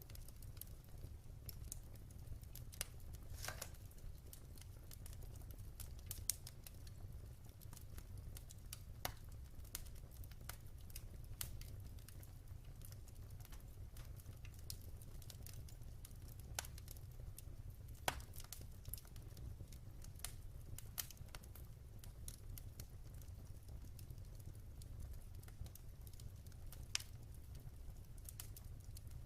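Wood fire burning in a fireplace: a low steady rumble of the flames with sharp, irregular crackles and pops scattered throughout.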